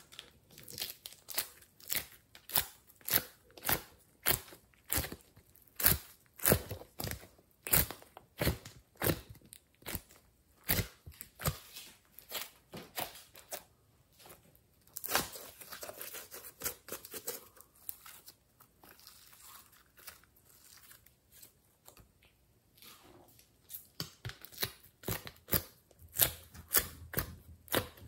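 Glossy slime being squeezed, pressed and pulled by hand, making sharp wet clicks and pops, roughly one or two a second. A softer, continuous squishing comes in the middle, and the clicks grow denser again near the end.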